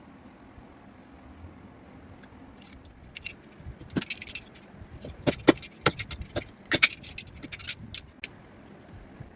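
Irregular clinks, clicks and scrapes of door-lock hardware being handled and fitted, starting about three seconds in and stopping about a second before the end.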